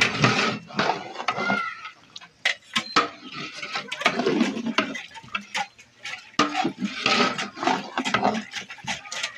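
Long metal ladle stirring thick mutton curry in a large metal cooking pot, scraping and knocking against the pot in irregular clanks and clicks.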